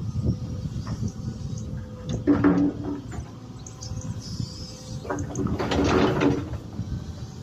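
Digger working: engine running under irregular knocks and scrapes, with two louder squealing stretches, about two and five seconds in.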